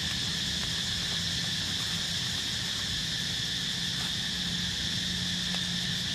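Steady chorus of insects, a continuous high drone with no breaks, over a faint low steady hum.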